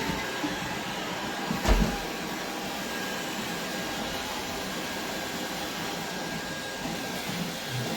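Deenkee DK700 robot vacuum running steadily in smart cleaning mode, a constant rushing noise with a faint high whine over it. A single knock sounds about two seconds in.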